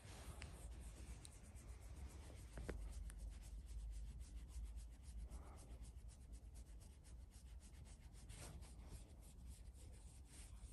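Faint, rapid scratching of fingers rubbing an Abyssinian cat's chin fur, several quick rasping strokes a second that grow denser about two seconds in.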